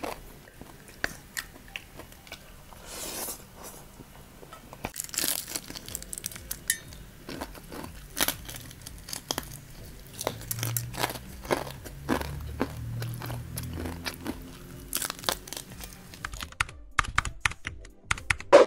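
Close-miked eating sounds: bites into crispy fried chicken and chewing, a string of short, sharp crunches with a few longer crunching stretches, the room sound cutting out shortly before the end.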